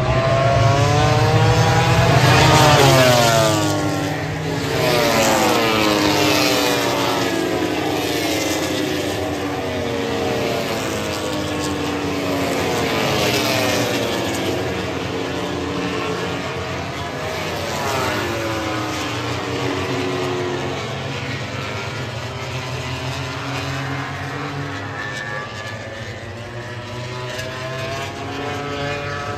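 A group of MotoGP racing motorcycles, 1000 cc four-cylinder prototypes, passing one after another, their engine notes overlapping and sweeping up and down in pitch as they rev through the gears. Loudest in the first several seconds, then fading as the bikes move away.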